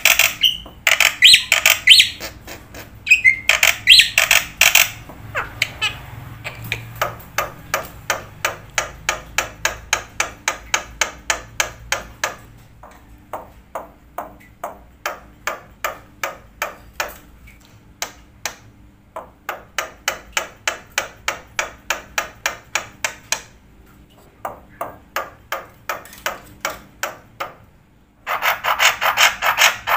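A long series of short, sharp taps or clicks, about four a second, coming in several runs separated by brief pauses. Bird-like chirping is heard in the first few seconds and again near the end.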